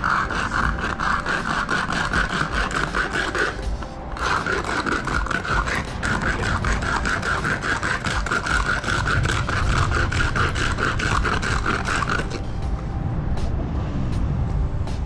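Metal can rubbed rapidly back and forth on concrete: a steady, fast, gritty scraping of the can's rim grinding against the rough surface, the friction method of wearing through the lid's crimped seam to open the can without an opener. It breaks off briefly about 4 s in and stops about 12 s in.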